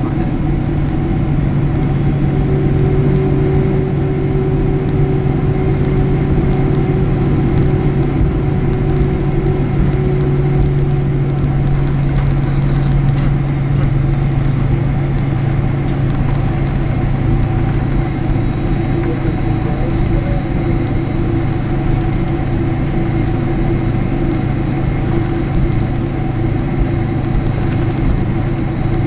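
Steady drone of a jet airliner heard from inside the passenger cabin: engine and air-conditioning noise with a low hum and a few held tones, on the ground just after landing.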